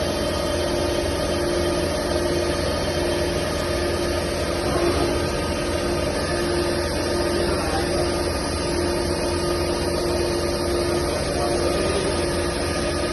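CNC machine running steadily: a constant mid-pitched whine over an even mechanical noise.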